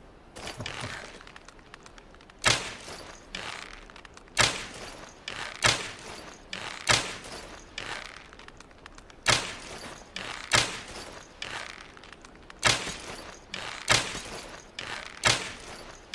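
Longbow shots: a series of sharp cracks, about nine in all, one to two seconds apart, with softer, noisier sounds between them.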